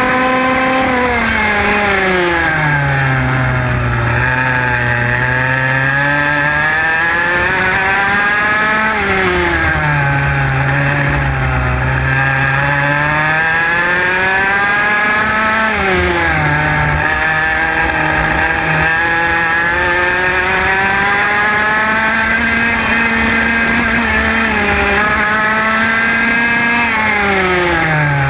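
IAME X30 125cc two-stroke kart engine heard onboard, running hard throughout. Its pitch drops four times as it slows for corners and climbs back up as it accelerates out of each one.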